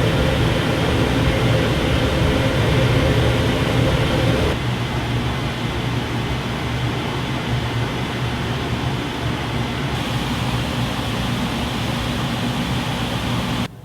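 Range hood blower fans running on high: a steady rush of air over a low hum. The sound drops a little and changes tone about four and a half seconds in, shifts again near ten seconds, and cuts off suddenly just before the end.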